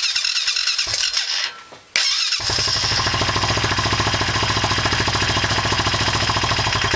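Honda Foreman 500 single-cylinder four-stroke ATV engine being cranked by its starter on its first start after a rebuild: a whirring crank that stops about a second and a half in, a second crank, and the engine catches about two and a half seconds in. It then runs steadily at a low idle.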